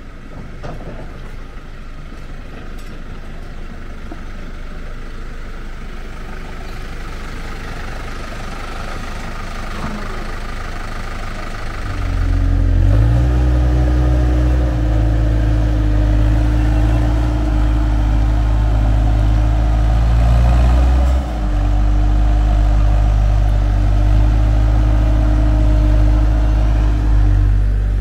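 Diesel engine of a Manitou telehandler working as it loads manure into a manure spreader, growing louder over the first twelve seconds. About twelve seconds in, a loud, steady, low engine hum at close range takes over.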